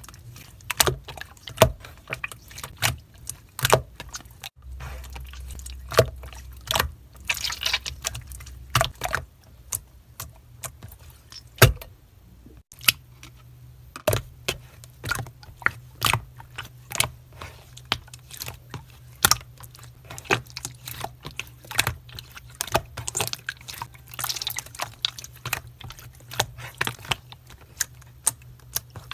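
Slime being pressed and squeezed by hand, giving a long run of sharp clicking pops, irregular, one to several a second.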